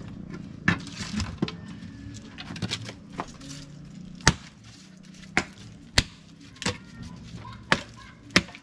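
Dry firewood sticks being broken up for kindling: about ten sharp, irregular cracks and snaps.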